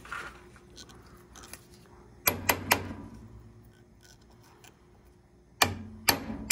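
Small ball-peen hammer tapping on a 20 mm impact socket to drive a metal-backed rubber caliper-pin dust boot into the brake caliper bracket: three quick metal-on-metal taps a little over two seconds in, then three more near the end.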